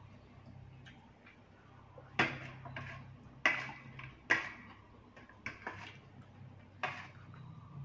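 Metal spoon and fork clinking and scraping against a plate while lifting and stirring rice noodles in curry sauce: about six sharp clinks, the loudest between two and four and a half seconds in, over a low steady hum.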